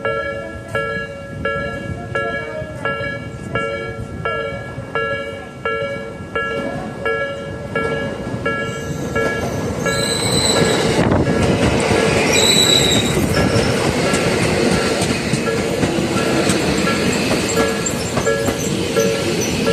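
Level-crossing alarm ringing its two-tone chime in an even rhythm, a little more than one strike a second. About halfway through, the running noise of a passing Tokyo Metro 13000 series electric train swells up under it, with two short high squeals a couple of seconds apart.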